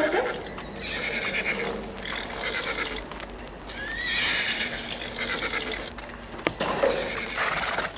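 Horses neighing a few times, with some hoof clopping.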